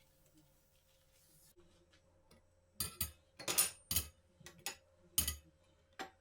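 Hard household objects being handled, clinking and knocking: a quick run of sharp clinks starting about three seconds in, then one more near the end.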